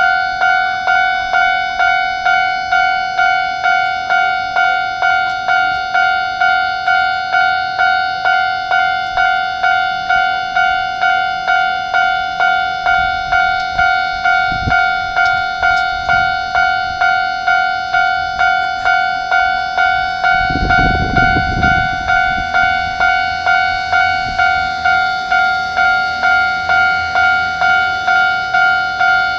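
Japanese railway level crossing's electronic warning bell ringing in even, regularly repeated dings. A brief low rumble comes about two-thirds of the way through.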